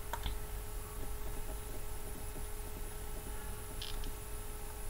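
Low steady electrical hum with a faint steady whine: the background of the recording. There is a faint click just after the start and another brief faint click near the end.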